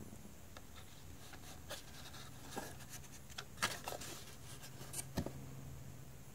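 Plastic mini tabletop drum set and its cardboard packaging insert being handled: light rustling and scraping with scattered clicks and taps, the sharpest about three and a half seconds in and again just after five seconds.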